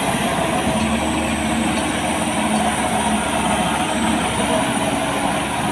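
Maxxi Bimo 102 rice combine harvester running steadily, a dense, even engine and machine noise.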